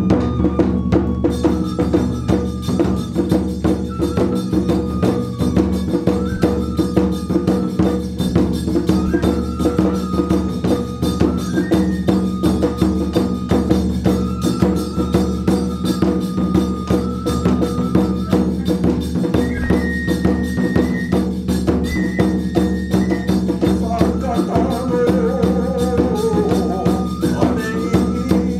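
Kagura festival music: a drum beaten in a continuous rhythm with jingling percussion, and a flute playing long held high notes that step up and down above it.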